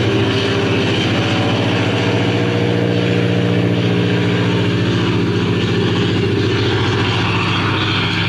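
Piston aircraft engine running steadily at a constant speed, an even, unbroken drone.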